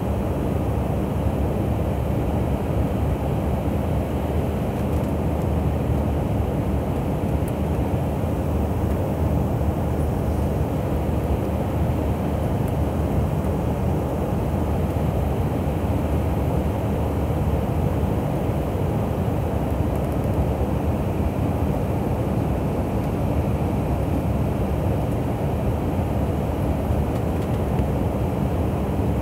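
Steady cabin noise of an airliner on its approach to landing: an even low rumble of engines and rushing air, heard from inside the cabin.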